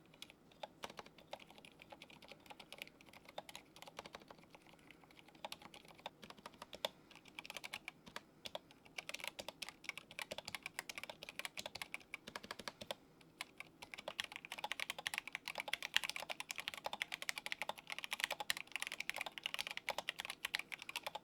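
Typing on a mechanical keyboard fitted with silent switches, with soft, muted keystrokes. It starts with scattered presses, then becomes quicker, continuous typing from about a third of the way in, with a brief pause in the middle.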